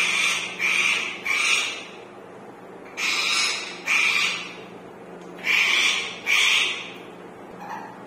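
Indian ringneck parakeets squawking: seven loud calls in three groups of three, two and two, with fainter calls near the end.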